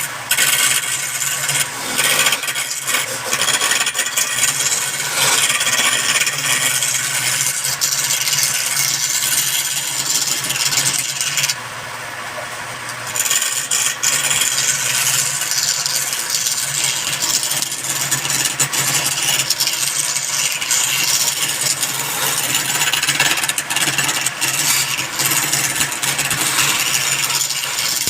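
Wood lathe running with a turning tool cutting into the spinning wood: a steady scraping hiss over the machine's hum. The cutting noise drops away for about a second and a half near the middle, then resumes.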